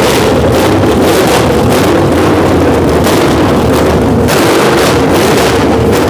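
512 cubic inch stroker big block Mopar V8 running on an engine run stand with no exhaust system, loud and steady with a ragged, uneven beat. It cannot yet idle on its own: the timing is not set and it runs on a temporary carburetor too small for the engine.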